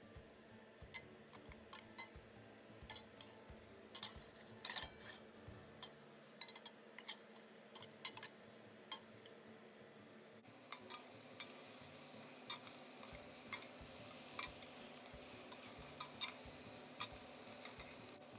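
Metal spoon stirring chicken pieces in a stainless steel pot, clicking and scraping against the pot in irregular strokes. A faint steady frying hiss comes up about ten seconds in.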